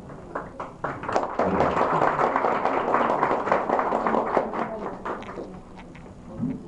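A small audience applauding. The clapping swells about a second in and fades out around five seconds in.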